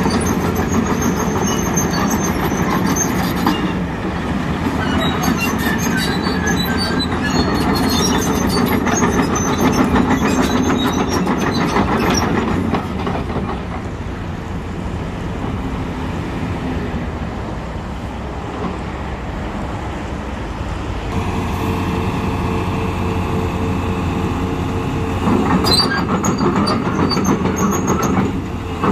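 Volvo EC380DL crawler excavator travelling, its steel tracks clanking and squealing over its engine's running. A steady whine comes in for a few seconds after the middle, and the clanking grows loud again near the end.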